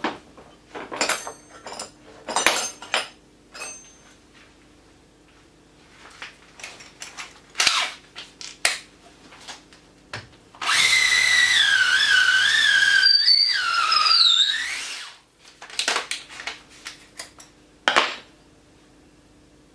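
Festool TI 15 cordless drill running for about four and a half seconds with a steady motor whine that wavers in pitch, dipping and climbing again near the end before winding down. Before and after, there are scattered metallic clinks and knocks.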